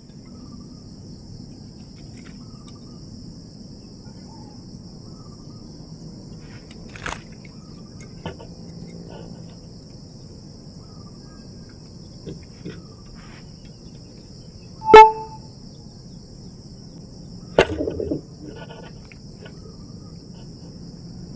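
Insects keep up a steady, high-pitched drone. A sudden loud knock with a brief ringing tone comes about fifteen seconds in, and a shorter sharp sound follows a few seconds later.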